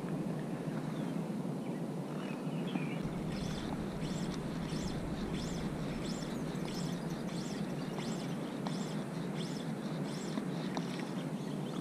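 A bird calling over and over, short high chirps about twice a second, over a steady low background rumble.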